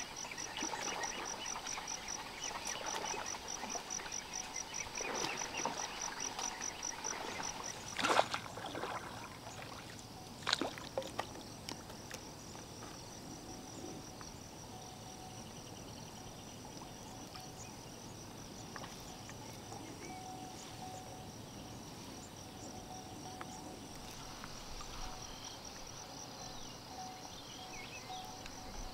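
Lakeside animal chorus: a fast, high pulsing call, about four pulses a second, that fades out about eight seconds in, over a faint steady high chirring. Two sharp impacts stand out, about eight and ten seconds in.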